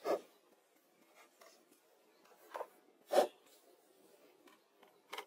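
Stones being handled and set in place: a few short knocks and scrapes of stone on stone and gritty soil, about four in all, the loudest about three seconds in.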